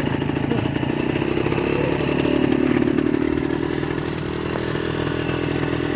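Two-stroke engine running steadily, its rapid firing pulses holding an even pace.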